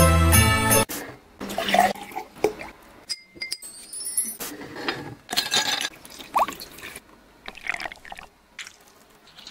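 Music for about the first second, then it cuts off. After that, liquids are poured into drinking glasses in several short takes, with light glass clinks and a short rising ring about six seconds in.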